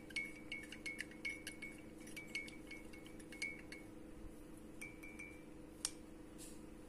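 Wooden spoon stirring honey into tea in a glass mug, clinking lightly against the glass with a short ringing tone, about three clinks a second. The stirring stops about four seconds in, followed by a couple of softer clinks and one sharp tap as the spoon is lifted out.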